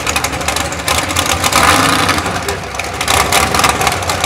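Mud-bog mega truck's engine running hard as the truck churns slowly through a deep mud pit, swelling louder around the middle.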